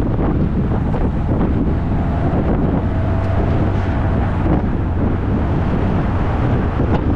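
Wind buffeting the microphone of a hood-mounted camera on a moving vehicle, a loud, steady rumble with road and vehicle noise underneath. A faint thin tone comes in about three seconds in and fades after a second or so.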